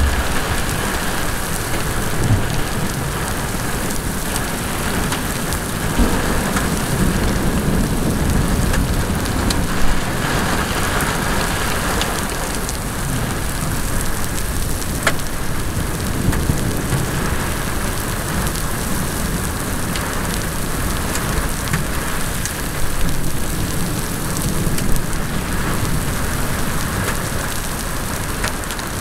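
Heavy thunderstorm rain pouring onto a paved road, with a low rumble that swells and fades and a few sharp knocks.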